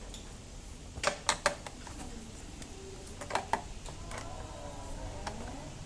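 Sharp metallic clicks and clinks of hand tools and screws being handled: a quick cluster of four taps about a second in, then two more a little past three seconds.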